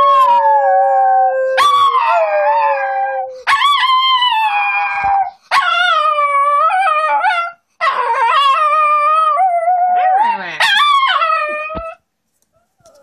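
Small long-haired dog howling in a string of long, wavering, high-pitched howls with short breaks between them, stopping near the end; really loud. It is a vocal protest, which the owner takes as displeasure at having the fur around her eyes and nose trimmed.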